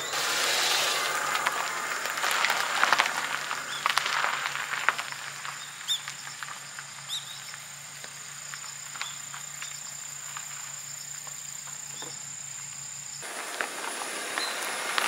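Outdoor countryside ambience with insects chirring steadily in a high, thin tone, under scattered clicks and rustles that are busiest in the first few seconds. The whole background changes abruptly about thirteen seconds in.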